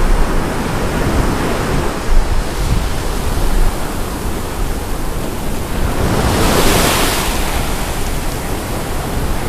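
Surf washing up the sand at the water's edge, with wind rumbling on the microphone. A wave rushes in and grows loudest about six to seven seconds in.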